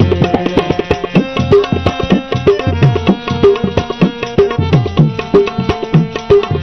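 Instrumental break in a Saraiki folk song (mahiya): hand drums in a tabla style play a fast, steady rhythm, with falling bass strokes several times a second, over held melody notes.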